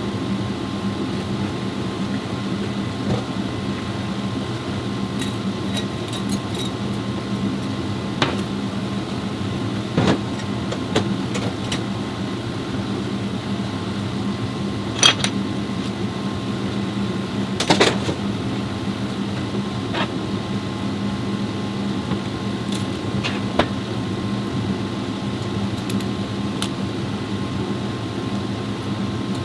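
Steady hum of a 2015 Chevrolet Spark running on a test drive after its CVT transmission was repaired, with a few faint clicks and knocks scattered through it.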